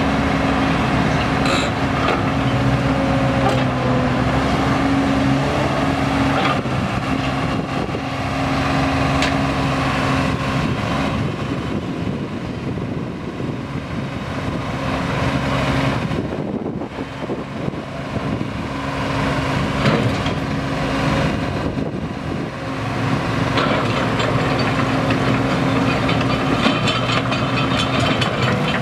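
Komatsu PC30 mini excavator's diesel engine running steadily while the machine is worked, with a brief dip in loudness about two-thirds of the way through.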